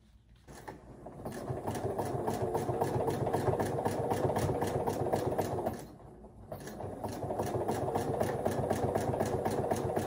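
Domestic sewing machine running at a fast, even stitch rate while free-motion quilting. It stops briefly a little before six seconds in, then starts stitching again.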